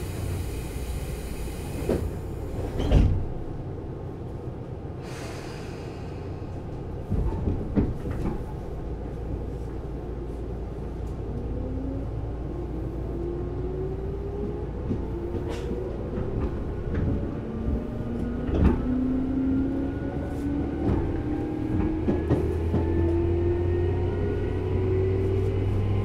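Tobu 10000-series electric train's motor car pulling away from a station. A thump about three seconds in and a short hiss a few seconds later, then the traction motor and gear whine, several tones rising steadily together as the train picks up speed, with scattered knocks from the wheels and running gear.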